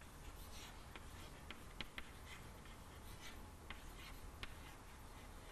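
Chalk writing on a blackboard: faint scratching with a scatter of short, sharp taps as the chalk strikes and lifts from the board.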